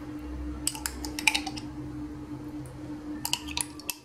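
Metal spoon clinking and scraping against a glass jar while scooping out thick tomato paste: two short runs of sharp clicks, about a second in and again near the end, over a faint steady hum.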